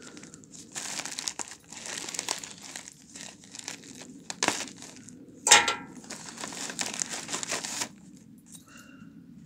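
A shipping mailer bag being handled and torn open by hand: crinkling and tearing, with one loud sharp rip about five and a half seconds in. The crinkling stops about two seconds before the end.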